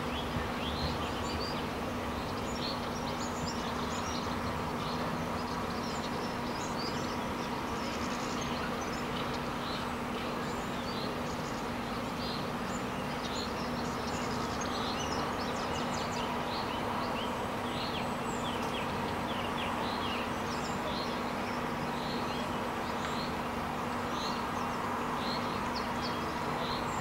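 Small birds chirping and twittering steadily, over a constant low hum from the distance.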